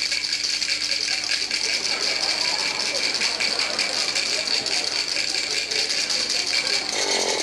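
Dice rattling fast and continuously in a shaker cup that is shaken hard, a dense, even clatter.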